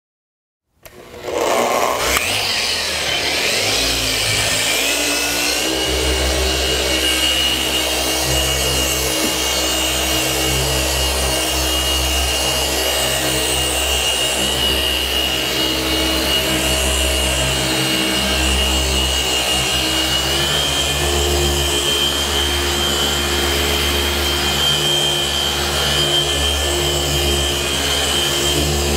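Electric paint polisher starting up about a second in and running at steady speed with a constant whine while buffing compound on a car hood's paint; its pitch shifts slightly a couple of times as the load changes.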